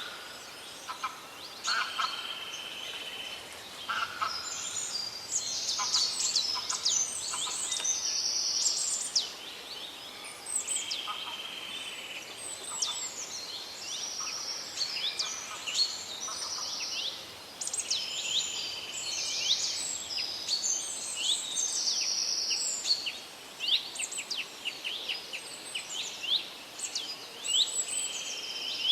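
A chorus of several songbirds singing over one another: quick chirps, fast down-sweeping notes, rapid trills and held buzzy phrases, over a steady background hiss.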